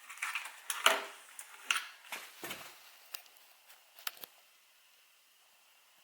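Hands working a plastic wiring connector to unplug it: scattered clicks and short rubbing sounds over the first four seconds, the sharpest click about a second in.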